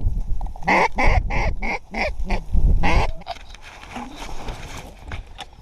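Hand-blown duck call sounding a quick run of about eight quacks, roughly four a second, stopping about three seconds in.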